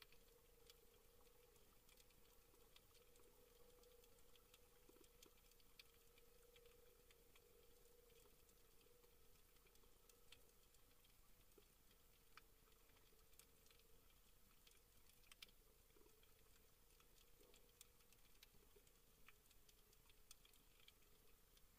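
Faint underwater crackle of many irregular clicks, typical of snapping shrimp on a coral reef, over a faint steady hum.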